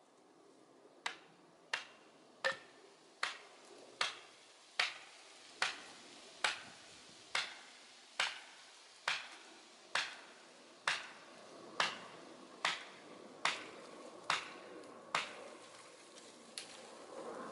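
Steady, evenly paced blows struck at the base of a tree being felled, about eighteen sharp knocks at roughly one every 0.8 seconds, starting about a second in and stopping a couple of seconds before the end.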